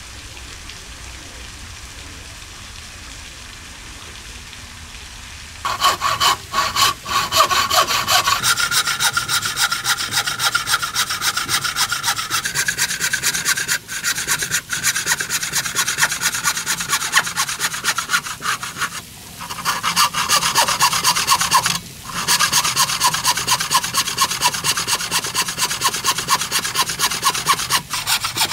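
Hand saw cutting into a wooden beam in quick, even back-and-forth strokes, starting about six seconds in after low room tone and broken by a few brief pauses.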